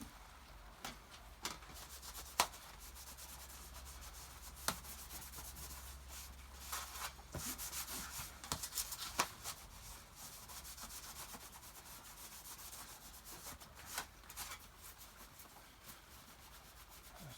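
Old towel dampened with white spirit rubbed over the old toolbox to clean off paint: a steady scrubbing hiss that swells in the middle, with scattered sharp knocks, the loudest about two and a half seconds in.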